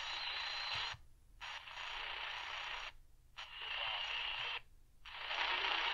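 Tivdio V-111 portable radio's speaker giving medium-wave static between stations as it is tuned up the band. The hiss comes in four stretches of about a second each, cutting out briefly in between, with a faint high whistle in some stretches.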